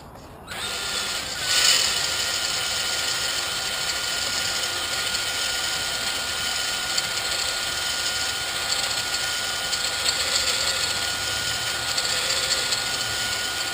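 Cordless drill running steadily with a steady whine, spinning a stone cylinder hone in the Pontiac 455's cylinder bore to clean up a rust ring. It starts about half a second in.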